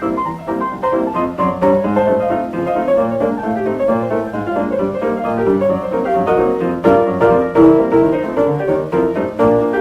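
Solo stride piano playing fast, busy runs of notes over a steady left-hand bass, as recorded on a 1930 78 rpm record with a muffled top end.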